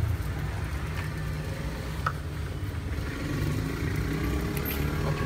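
Steady low rumble of road traffic and motor vehicle engines, with a couple of light clicks as plastic cups and bags are handled.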